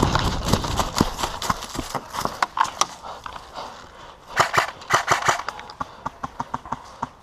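A rapid, irregular series of sharp clicks and knocks, densest a little past halfway, then a run of evenly spaced ticks that fades out near the end.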